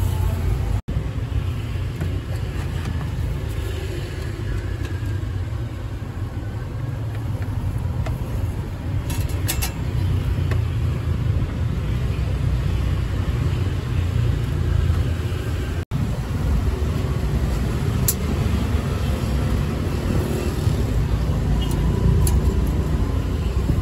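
Steady low rumble of street traffic, with a few light clicks and taps now and then. The sound drops out for an instant twice, about a second in and again around sixteen seconds in.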